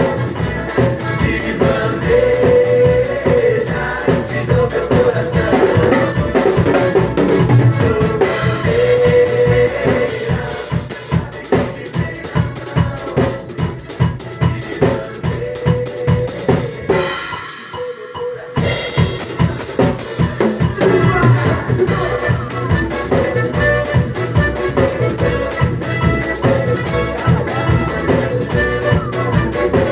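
Drum kit played along to a recorded axé music track, with snare, bass drum and rimshot strokes over the song's own accompaniment. The music breaks briefly, the low end dropping out, about two-thirds of the way through before the groove returns.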